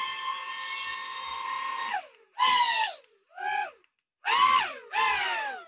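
Small toy drone's motors and propellers running with a steady high whine that cuts off about two seconds in, then revving in four short bursts, each one falling in pitch as the motors spin down. To the owner it doesn't sound quite right.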